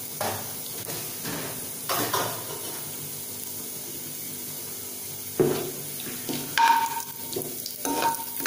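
Hot oil sizzling steadily in a steel kadai as mustard seeds, urad dal, chana dal and cumin fry for a tempering. In the last few seconds a spoon stirs the pan, with several louder clatters.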